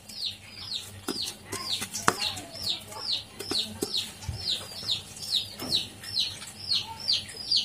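A small bird chirping over and over, about two or three short falling chirps a second, with a few faint knocks scattered among them.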